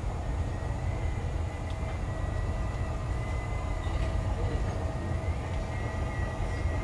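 Chicago 'L' rapid-transit train running on elevated track as it pulls into a station, heard from inside the lead car: a steady rumble of wheels and motors with a thin steady whine above it.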